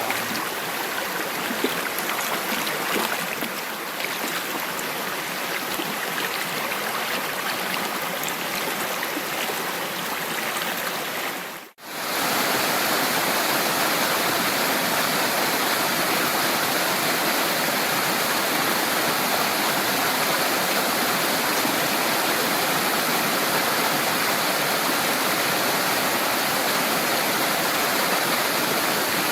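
Running water, a stream, playing without a break. About twelve seconds in it cuts out briefly and comes back as a steadier, fuller rush of water.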